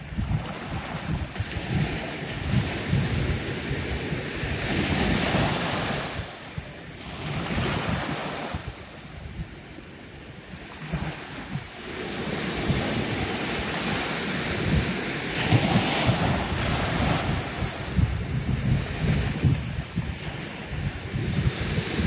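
Sea waves washing in and drawing back, the hiss swelling and fading every few seconds with a quieter lull near the middle, over the gusty rumble of wind buffeting the microphone.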